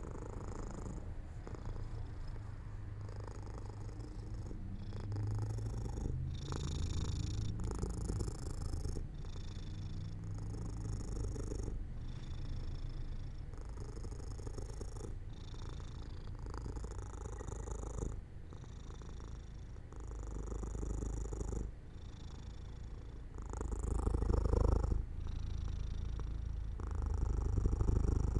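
Domestic cat purring steadily, the purr swelling and easing with each breath.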